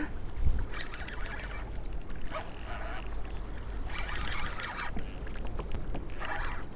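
Low wind rumble on the microphone with water washing against a kayak, and short stretches of higher hissing sound four times.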